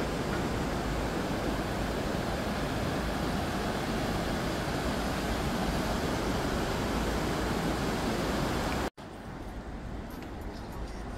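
Steady rushing of fast-flowing river water. It breaks off abruptly near the end and comes back quieter.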